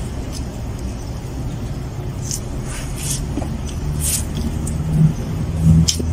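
A motor vehicle engine running nearby: a steady low hum that grows louder toward the end. Over it come a few short clicks and rustles as food is handled.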